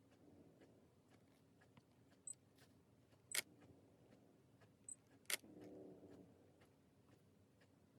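Near silence in a quiet room, broken by two sharp clicks about three and a half and five seconds in, with a few fainter ticks and a faint low hum just after the second click.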